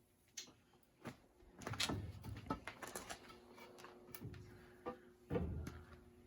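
Scattered knocks and clicks, with two heavier thumps about two and five seconds in; a faint steady hum comes in near the middle.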